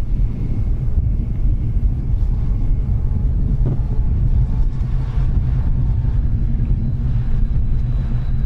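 Fighter jet's engines running at high power during the takeoff roll: a loud, steady low rumble.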